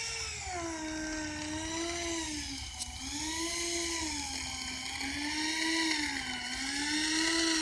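Electric ducted fan of a Sapac EF2000 Eurofighter RC foam jet whining in flight. Its pitch swings up and down about every two and a half seconds.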